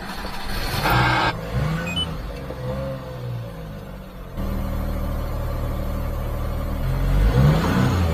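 Supercharged Daihatsu Hijet mini-truck engine, heard from inside the cab, revving up and down. It then runs steadily and picks up revs near the end as the truck pulls away.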